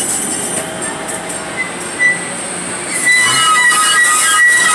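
Maryland MTA light rail car rolling past at close range. About three seconds in, high steady squealing tones from the wheels on the rail come in over the rolling noise.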